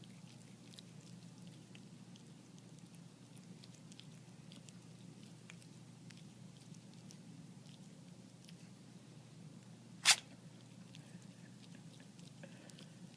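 A cat sneezing once, a short sharp burst about ten seconds in, against faint scattered clicks and a low hum.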